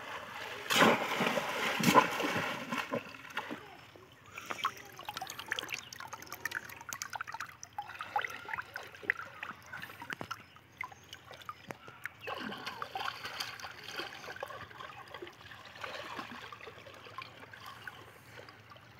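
Shallow water splashing and sloshing as bamboo cone fish traps are pushed down into a flooded field and hands grope inside them for fish. The splashing is heaviest in the first few seconds, then thins to small scattered splashes and trickles.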